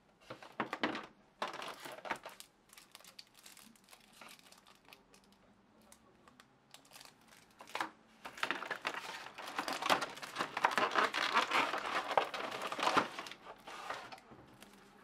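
Plastic film wrap crinkling and rustling as a wrapped projector is handled and pulled from its molded plastic packaging tray. A few short rustles come first, then a longer, louder stretch of crinkling from about eight seconds in until shortly before the end.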